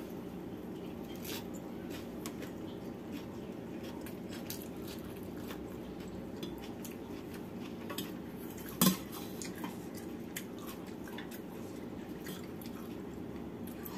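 Eating by hand from stainless steel bowls: small clicks and taps of fingers and metal bowls and quiet chewing over a steady low hum, with one louder short knock about nine seconds in.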